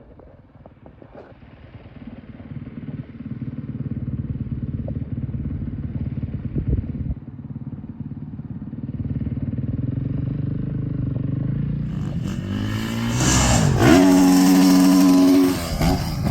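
An engine running, growing louder over the first few seconds and then holding steady. Near the end it revs hard, its pitch rising and falling for a few seconds before it cuts off abruptly.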